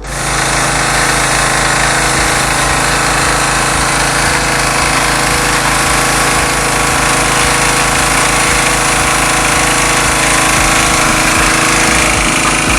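A loud machine running steadily with a rapid, even low pulsing under a constant noisy hiss.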